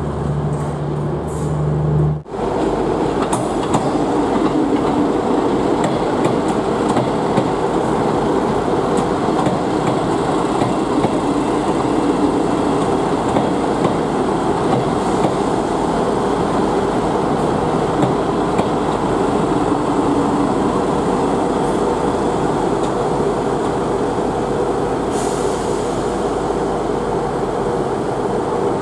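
For about two seconds a First TransPennine Express diesel multiple unit hums on its approach. Then an East Midlands Trains Class 158 diesel multiple unit rolls slowly along the platform with a steady engine drone and rumble, coming almost to a stand. A short hiss of air comes near the end.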